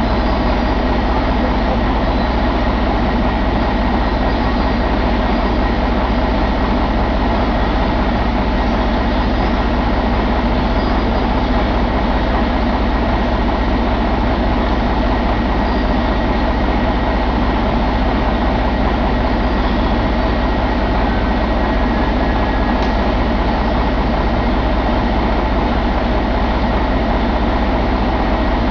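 Mercedes-Benz MBE4000 12.8-litre inline-six diesel engine running steadily on a test stand at a constant speed, with no revving.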